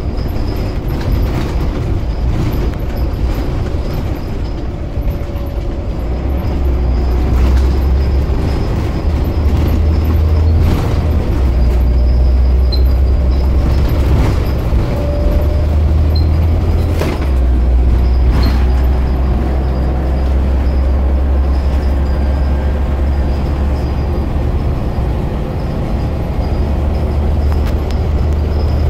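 Onboard sound of a Scania OmniCity CN230UB single-decker bus driving: a steady low diesel engine drone that shifts in pitch a few times as it gets under way, over road noise. Short knocks and rattles from the bus's interior fittings come through a few times.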